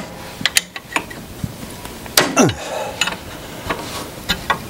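Wrenches clinking and knocking against steel hydraulic fittings and a valve as they are turned and repositioned, a scattering of sharp metal clicks with one louder knock about two seconds in.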